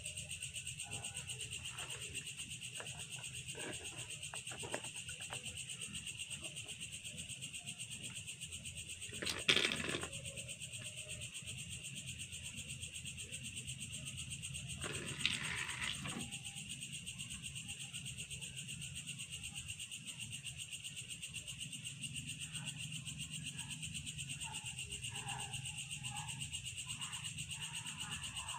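Steady, high-pitched chirring of night insects with an even pulse, broken by two brief louder noises about nine and fifteen seconds in.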